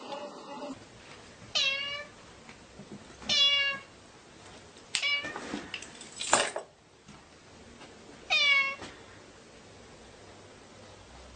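A domestic cat meowing three times in short, separate calls, with two brief, sharper noises between the second and third meows.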